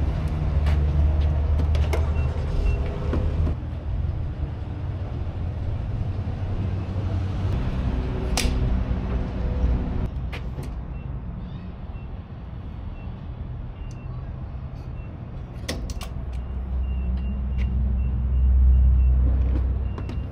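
Pickup truck driving: a steady low engine and road rumble with scattered knocks and rattles, growing louder near the end.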